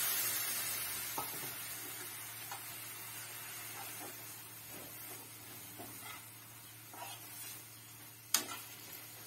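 Milk sizzling in a hot frying pan of fried grated coconut, fading over the first couple of seconds, while a metal spoon stirs and scrapes through the mixture about once a second. One sharp knock near the end.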